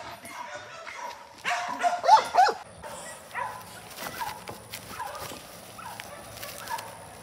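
Dogs barking in sharp, high yips, the loudest about two seconds in. After that, fainter short high calls repeat about twice a second.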